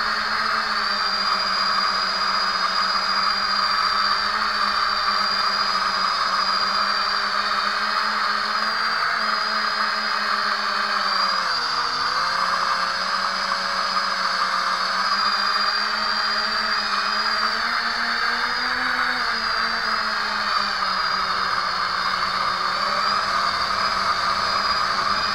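Brushless motors and propellers of a lightweight homemade foam quadcopter whining steadily in flight, heard through its onboard camera. The pitch dips briefly about halfway through, then comes back up, with a smaller rise a few seconds later as the throttle changes.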